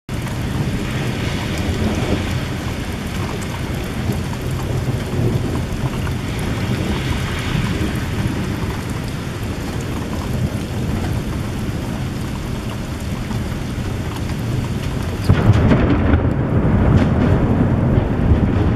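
Steady rain falling during a thunderstorm, with thunder rumbling low underneath. About fifteen seconds in, a louder, deeper peal of thunder sets in and keeps rumbling.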